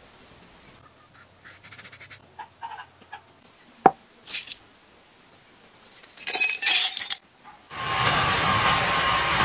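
Light clinks, then a sharp knock about four seconds in as a crucible is set down on concrete, and a louder rattling burst a couple of seconds later. Near the end a brick coal forge burning comes in as a loud, steady rushing noise.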